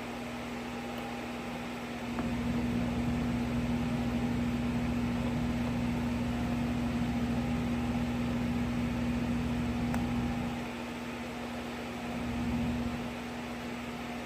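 A steady low electrical hum under a rushing, fan-like noise that comes up about two seconds in and drops away near the end.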